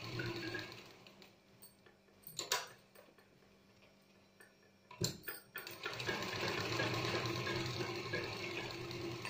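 Sewing machine stitching through layered kurti fabric in two runs. It slows to a stop about a second in, gives a couple of short knocks while the work is repositioned, then runs steadily again from about six seconds in.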